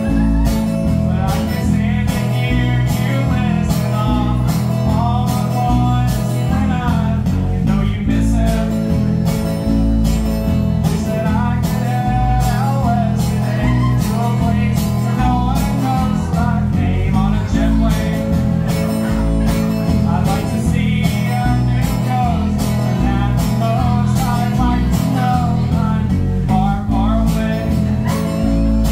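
Live acoustic guitar with male singing, a song performed by a duo sharing one microphone.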